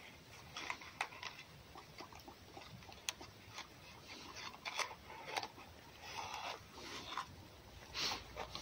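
Red fox nosing about in straw bedding, looking for a place to cache its food: faint, scattered rustling and scraping with soft clicks.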